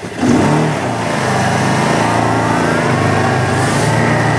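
Kawasaki Teryx 800 side-by-side on snow tracks driving, its engine rising in pitch in the first half-second and then running steadily.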